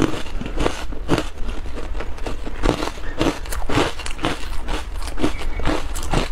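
Ice being crunched and chewed close to the mouth, in repeated crisp crunches about two a second, with a short lull near the middle.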